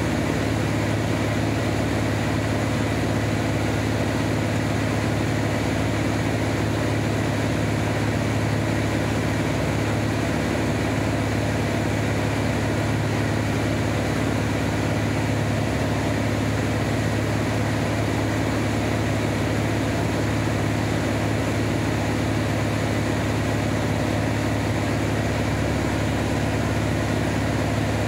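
Van's RV-7A light aircraft's piston engine and propeller running at a constant, steady drone with an even hiss over it, as in level flight.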